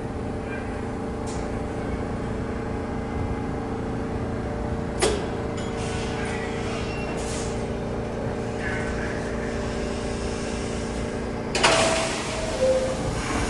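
An R62A subway train standing at the platform, its equipment giving a steady electrical hum. There is a sharp short crack about 5 s in, and a louder burst of air hiss near the end.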